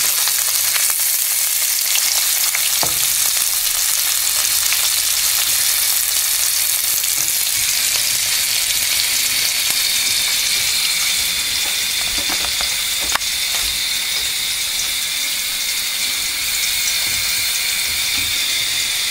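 Sliced onions frying in hot oil in a pan, a steady sizzle as they brown, with a couple of sharp clicks.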